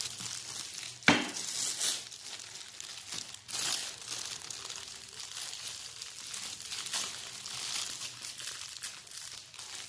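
Clear plastic wrapping on a bag's straps crinkling and rustling as it is handled, with a sharp, louder snap about a second in and another strong crackle a little after three seconds.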